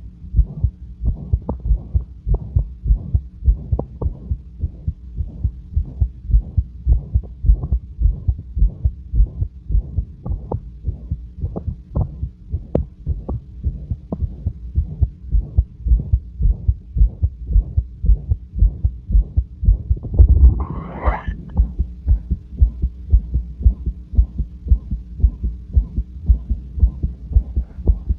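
A person's heart beating calmly at rest, heard through a stethoscope: a steady, even rhythm of beats with a loud, harsh whooshing murmur, a murmur the owner says is always there. About two-thirds of the way through, a brief louder noise lasting about a second sounds over the beats.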